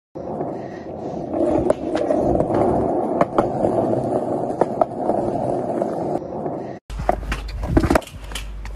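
Skateboard wheels rolling on a concrete sidewalk, a steady rolling rumble with a few sharp clicks. Near the end it cuts off and a different recording begins, with a low hum and a few knocks.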